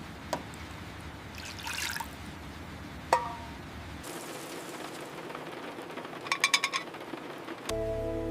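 Steady rain, with a few sharp clicks (the loudest about three seconds in) and a quick run of clicks a little after six seconds. Soft music with held notes comes in near the end.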